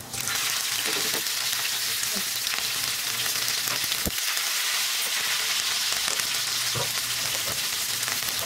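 Green chili and ginger paste dropped into hot oil in a kadhai: a sudden sizzle right at the start that keeps on steadily as the paste fries, with a steel ladle stirring and knocking against the pan a few times.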